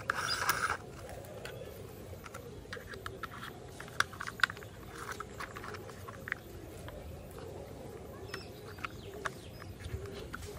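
Hard plastic toy-truck parts clicking and knocking as they are handled and fitted together by hand, with a short rattle at the start and two sharper clicks about four seconds in.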